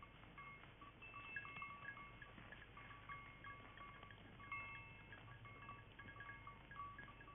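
Faint, irregular tinkling of bells worn by grazing goats, several small bells at different pitches ringing over one another.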